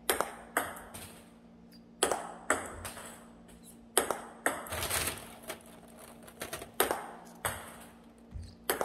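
Table tennis ball clicking off the table and paddle in backhand push practice: pairs of sharp clicks about half a second apart, a new pair roughly every two seconds, over a steady low hum.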